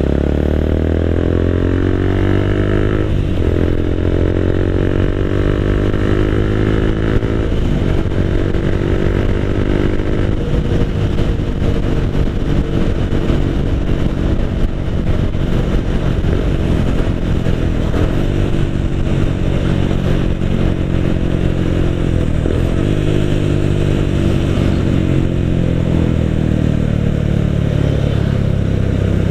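Motorcycle engine and exhaust heard from the rider's seat while riding. The engine note falls over the first few seconds, then drops and picks up again several times as the rider changes speed and gear.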